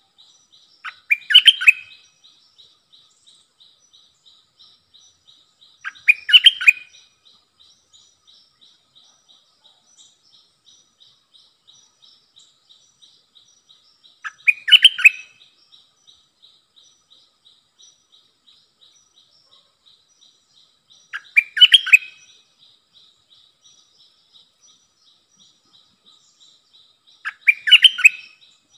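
Stripe-throated bulbul singing: five short, loud song phrases, each under a second, spaced several seconds apart, over a faint, steady, rapidly pulsing high trill.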